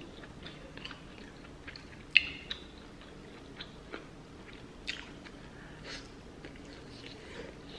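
A person chewing and smacking while eating sauce-covered seafood close to the microphone, with scattered wet mouth clicks. The sharpest click comes about two seconds in.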